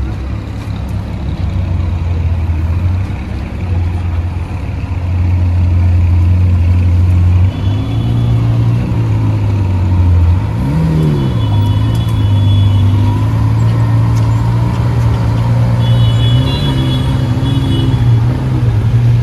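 Lamborghini supercar engines running with a deep, steady drone, and one quick rev that rises and falls about ten seconds in.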